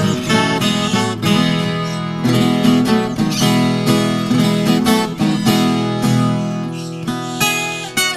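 Viola caipira playing a traditional hymn tune instrumentally: a plucked melody over strummed chords, with a new note every fraction of a second.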